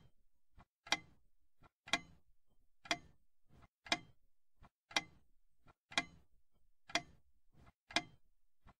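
Clock ticking steadily: a sharp tick about once a second, with a fainter tock between each.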